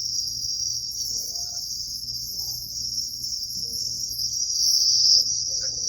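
A steady, high-pitched continuous buzz with a low hum beneath it, unbroken throughout and swelling slightly near the end.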